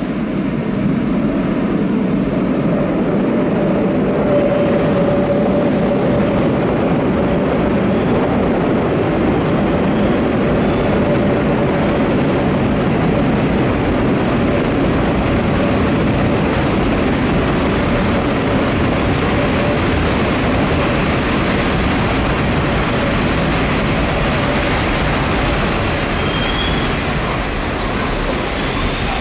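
London Underground battery locomotives running along the tube line, a loud steady rumble of wheels on rail. A faint thin squeal holds for several seconds in the first half.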